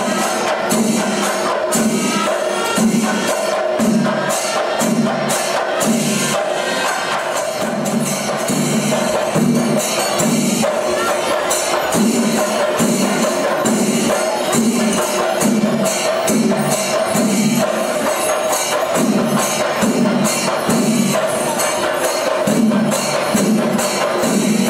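Kerala temple percussion ensemble of chenda drums and ilathalam cymbals playing: a steady low drum beat of about three strokes every two seconds under dense, fast cymbal clashes.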